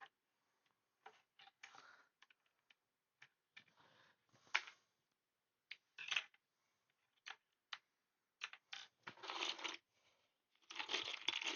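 Plastic Lego bricks clicking and clattering as they are handled and rummaged through, with denser rustling near the end.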